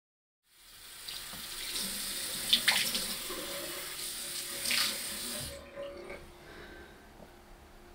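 Bathroom tap running into a sink, with a few sharp splashes of water in the basin. The water cuts off suddenly about five and a half seconds in.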